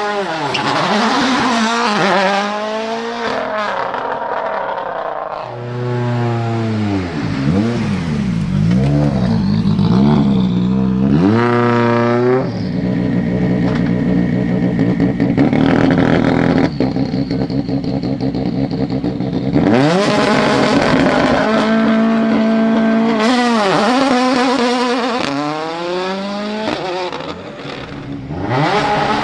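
Turbocharged 1.6-litre four-cylinder World Rally Car engine revving at the start line: revs swept up and down again and again, held steady at high revs for several seconds in the middle on launch control, then revved up and down quickly again.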